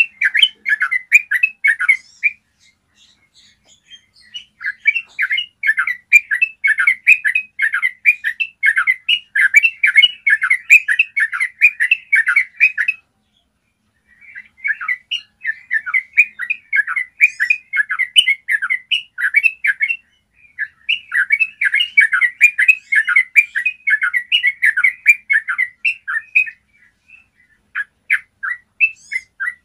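Yellow-vented bulbul singing long, rapid, rolling runs of clear chattering notes. The song comes in several long bouts, with short breaks about 3, 13, 20 and 27 seconds in.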